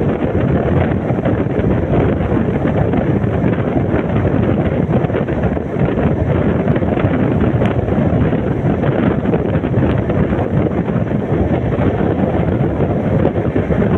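Steady wind buffeting the microphone over the rumble of a passenger train running at full speed, heard from its open door.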